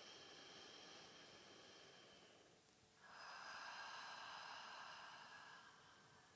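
A woman's slow, deep breath: a soft inhale through the nose, then from about three seconds in a longer, louder exhale through the open mouth, a breathy 'haa' as if fogging a mirror.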